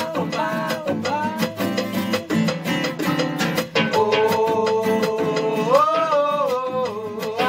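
Samba-style Latin music with a guitar, a fast busy percussion beat and a sung melody. The melody holds a long note, steps up to a higher one about six seconds in, then falls back.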